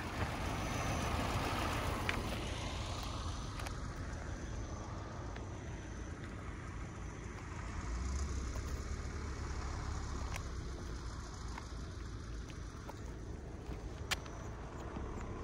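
Car engine idling steadily, with a sharp click near the end.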